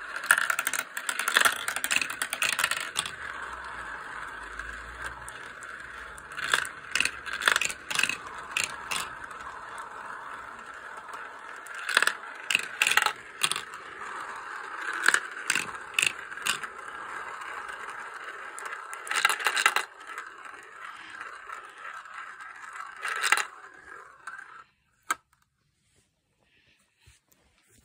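Glass cat's-eye marbles rolling round the clear plastic funnel bowls of a marble run toy: a steady rolling whir, with frequent clicks as the marbles knock together and drop through the tubes. The rolling stops about three-quarters of the way through, leaving a couple of single clicks.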